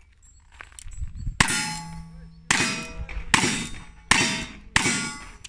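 Five shots from a single-action revolver, a little under a second apart, each answered by the ring of a struck steel target plate.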